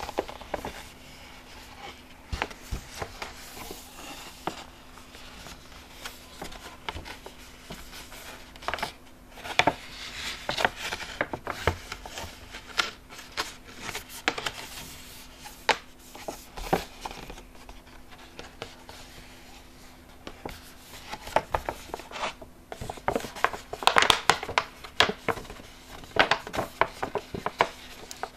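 High-gloss plastic flat-bottom bag crinkling and crackling as it is handled and flexed, in irregular bursts of sharp crackles and rustles. A faint steady hum runs underneath.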